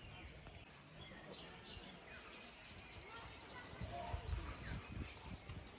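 Faint open-air ambience with a few high bird chirps now and then, and low rumbling on the microphone about four seconds in.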